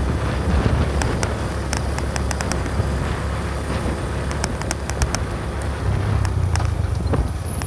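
Honda Magna 50's 49 cc single-cylinder four-stroke engine running on the move, under a heavy low wind rumble on the handlebar-mounted microphone, with scattered sharp ticks.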